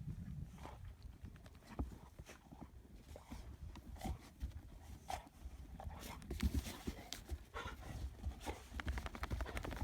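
Dogs playing in deep snow, with scattered short scuffles and thumps that come more often in the second half.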